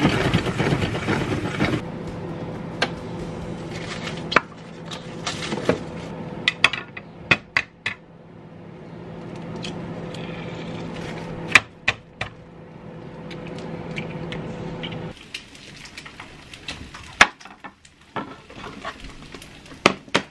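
Kitchen work sounds: a plastic salad spinner being worked at the start, then dishes and utensils clinking and knocking. Under them runs a steady hum that cuts off about fifteen seconds in.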